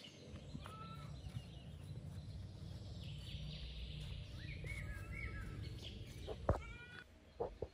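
A few short, high chirping animal calls over a low steady rumble, with a sharp knock about six and a half seconds in and two smaller knocks near the end.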